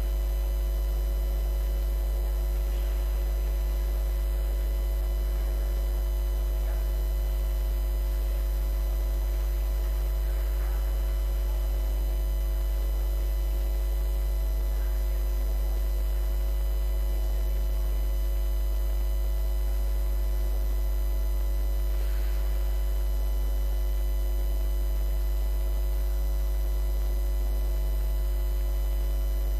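Steady, unchanging electrical mains hum, low and strong, with fainter steady tones above it.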